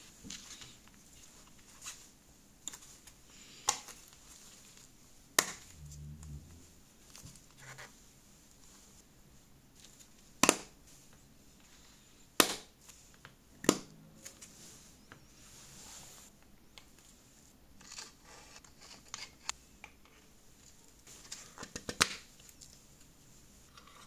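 Small rubber tyres and plastic hubs of a toy jeep being handled and pressed together by gloved hands: scattered sharp clicks and knocks, with a short dull thud about six seconds in and a quick run of clicks near the end.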